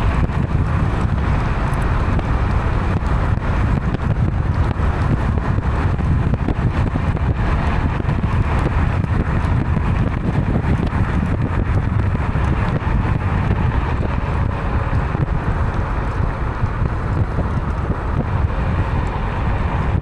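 Steady wind rush buffeting the microphone over the low rumble of a Kukirin G4 electric scooter's tyres on the road, riding downhill.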